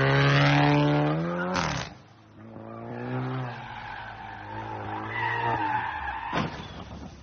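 Car engine revving hard as the car accelerates away, its pitch climbing, with a sharp crack about a second and a half in. Then a fainter engine note and tyres squealing as the car slides sideways, with a short sharp noise near the end.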